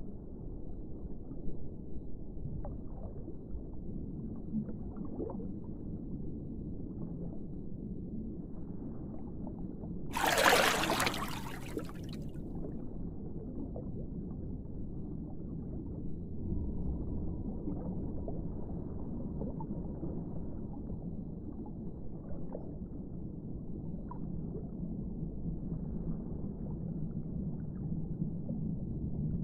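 Underwater sound: a steady muffled rumble and gurgling with scattered small clicks. About ten seconds in, a louder rushing burst lasts about two seconds.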